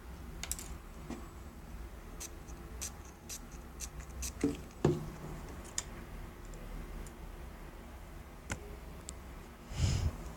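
Small handling noises: scattered light clicks and scratchy taps, with two louder knocks about halfway through and a short rustle near the end.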